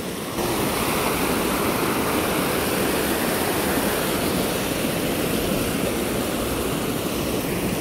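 Shallow river water rushing steadily over a rocky step and between stepping stones: a constant, even roar of white water.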